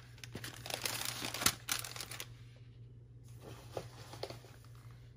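Plastic and cellophane packaging crinkling as it is handled, with sharp clicks, busiest in the first two seconds; a few faint rustles and ticks follow.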